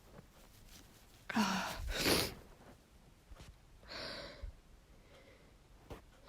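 A woman's gasping breaths as she builds up to a sneeze, her nose tickled by a tissue. A drawn-in gasp comes about a second and a half in, then a sharper, louder breath straight after, and another softer breath about four seconds in.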